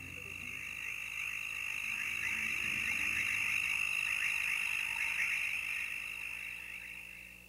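A chorus of frogs calling in dense rapid trills, swelling up and fading out near the end.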